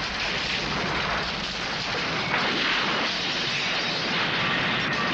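Explosion sound effects: a continuous dense noise of blasts and scattering debris, with no single clear bang standing out.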